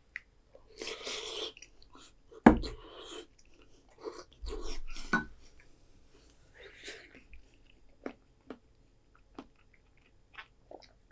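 A person eating soup from a wooden spoon: a slurp about a second in, a sharp knock about two and a half seconds in, then breaths blown out through pursed lips and soft mouth clicks of chewing.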